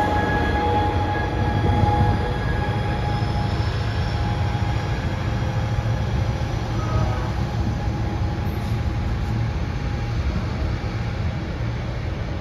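Amtrak Pacific Surfliner passenger train with a Siemens Charger diesel-electric locomotive moving away along the track: a steady low rumble with a held whine over it, slowly getting fainter.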